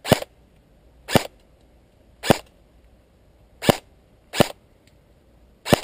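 M4-style airsoft rifle fired on semi-auto: six single shots, each a short sharp crack, spaced irregularly about a second apart.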